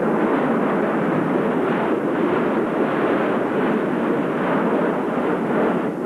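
Active volcano erupting: a loud, steady, unbroken rumbling rush of noise.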